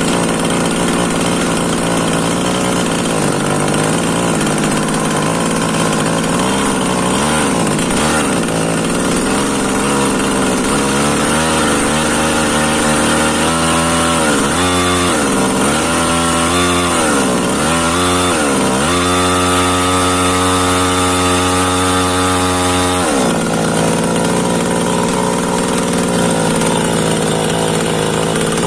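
Small two-stroke engine of an H&L Pro mini chainsaw, run to check its condition. It idles steadily, is revved up and let back down several times from about eleven seconds in, is held at high revs for about four seconds, then drops back to idle.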